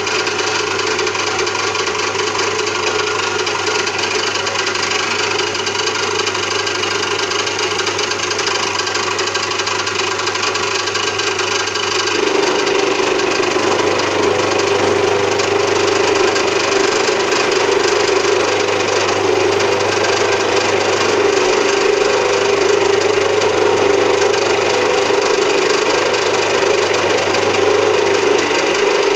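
Home-built metal milling machine running and cutting, a steady loud cutting noise over a constant motor hum. About twelve seconds in it gets slightly louder with a stronger mid-pitched tone.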